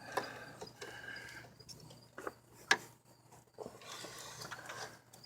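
Hand tools clicking and scraping against a shifter cable retaining clip as it is pried at, with one sharper click about halfway through.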